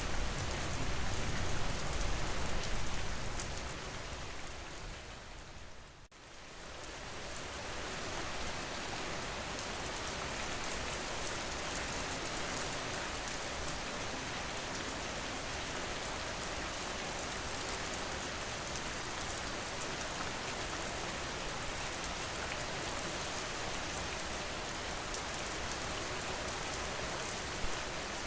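Steady rain falling, an even hiss with a deeper rumble in the first few seconds. About six seconds in it fades almost to nothing, then swells back and carries on evenly.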